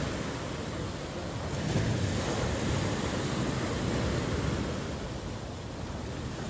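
Ocean surf: waves breaking and washing in a continuous rush, one swell about two seconds in, easing off near the end.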